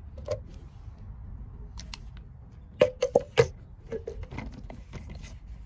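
Plastic clicks and knocks as a handheld pump sprayer's head is fitted and screwed onto its bottle, with a quick run of four sharp knocks about three seconds in.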